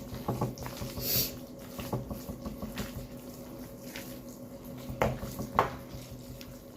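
A spoon stirring a thick, wet casserole mixture of chicken, broccoli, rice and sour cream, with soft squelches and scattered knocks of the spoon against the dish; two sharper knocks come about five seconds in. A steady low hum runs underneath.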